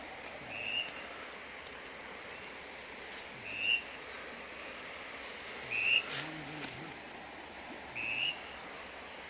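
Four short, rising whistles about two to three seconds apart, over a steady background hiss.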